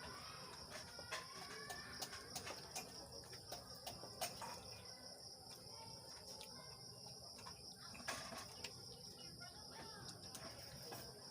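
Steady high, pulsing chirring of insects, with a few faint bird calls and scattered light clicks.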